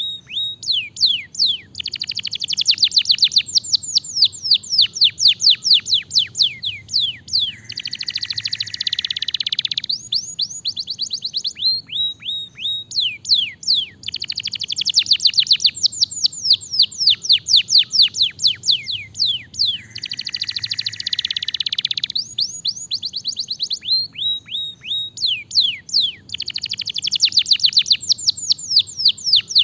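Domestic canary singing a continuous, loud song of rapid trills made of quick falling notes, broken by buzzy rolling phrases about eight and twenty seconds in; the pattern of tours repeats about every twelve seconds.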